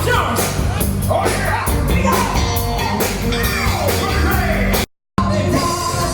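Loud rock music with a singer over a steady beat, broken by a split second of total silence about five seconds in before the music resumes.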